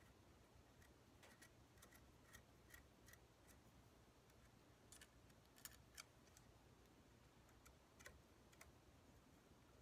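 Faint, small metallic clicks and taps of scope-ring caps and screws being handled and fitted around a rifle scope, a light run of ticks in the first few seconds and a few sharper clicks about halfway through and near the end.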